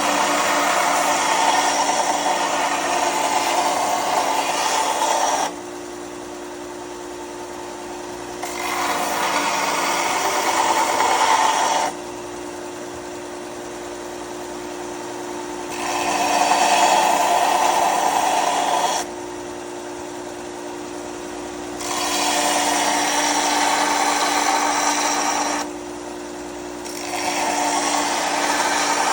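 Bauer belt grinder's motor running steadily while metal is pressed against its factory 80-grit-feeling sanding belt in five grinding passes of three to five seconds each, the grinding noise dropping away between passes.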